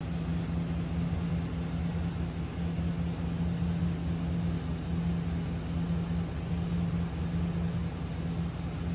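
The 6.0-litre Vortec V8 gas engine of a Chevrolet G3500 Express ambulance idling: a steady hum over a low rumble.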